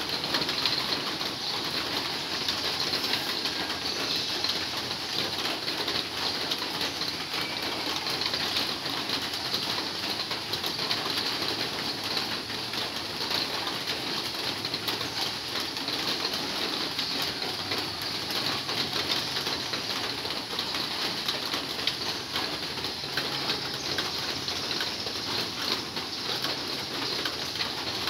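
Heavy rain falling steadily on a corrugated metal roof, heard from underneath as a dense, even hiss of drops.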